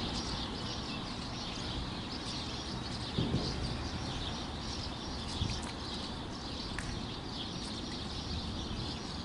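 Small birds chirping steadily in the background, over a low outdoor rumble. A brief low splash about three seconds in as the carp is held in the shallows.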